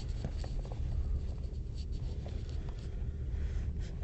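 Steady low rumble of a passenger train carriage, with scattered light clicks and scratching close to the phone.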